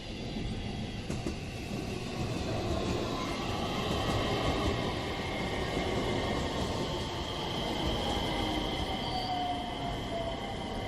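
A train passing a level crossing: a dense rumble of wheels on rail, loudest about four seconds in, with a high steady whine above it and a tone that slowly falls in pitch through the second half.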